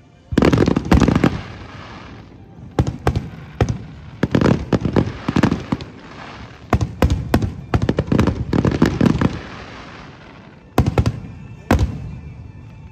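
Fireworks display: aerial shells bursting in rapid clusters of loud bangs, in about five volleys separated by short lulls.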